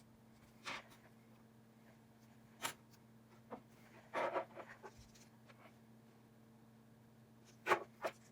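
A few short clicks and scrapes of small repair tools and parts being handled on an iPhone XR during a display replacement, the loudest pair near the end, over a steady faint hum.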